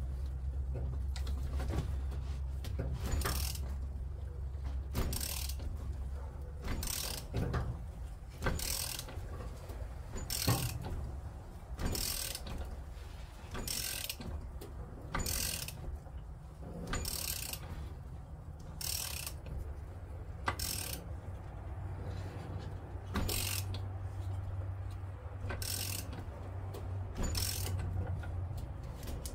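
Ratchet wrench clicking through short return strokes, about one every two seconds, while a nut is tightened down. A steady low hum runs underneath.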